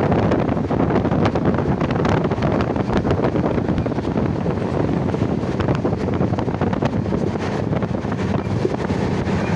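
Wind buffeting the microphone: a steady, loud rush, strongest low down, with scattered small clicks.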